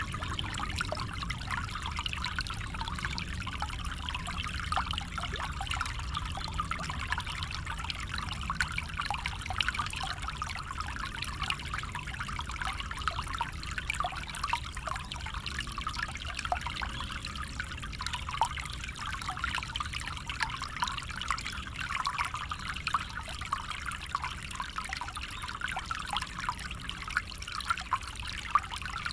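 Small stream flowing, with a steady trickling and babbling of water over stones and a low rumble beneath it.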